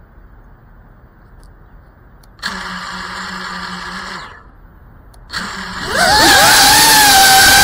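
Cinewhoop FPV drone's electric motors and propellers spinning at idle for about two seconds, then stopping. They start again and, about six seconds in, are throttled up into a loud whine that rises in pitch and then holds steady, as the drone takes off.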